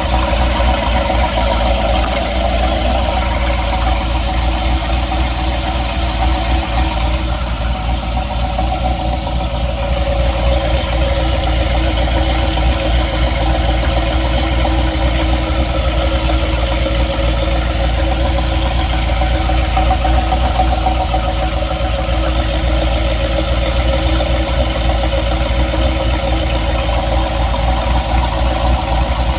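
Engine idling steadily with a knocking noise of unknown cause.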